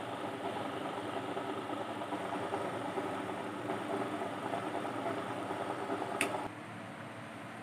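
Steady mechanical hum that drops away about six and a half seconds in, with a short click just before.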